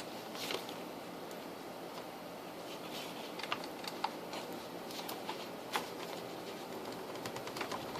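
A few scattered small clicks and knocks from a plug being worked into the power supply's tight output terminals, over a steady low hiss.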